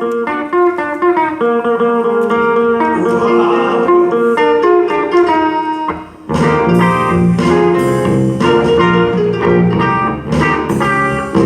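Instrumental music from a recorded backing track, led by plucked guitar. About six seconds in the music dips briefly, then comes back fuller with a bass line.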